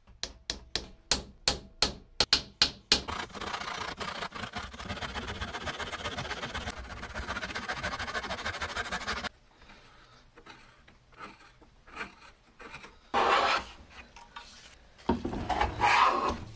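About a dozen sharp taps, roughly four a second, driving a glued hardwood dowel into its hole. Then a brass-backed hand saw saws steadily for about six seconds, trimming the dowel flush. After a quieter spell of light knocks, a metal hand plane makes a couple of loud shaving strokes across the joint near the end.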